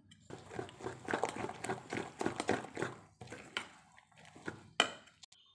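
A spoon stirring thick idli batter in a stainless steel bowl, with quick wet squelching and scraping strokes. One sharp knock comes near the end.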